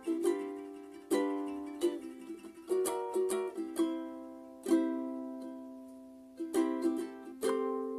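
Background music: a plucked string instrument playing slow chords, each struck and left to ring out and fade.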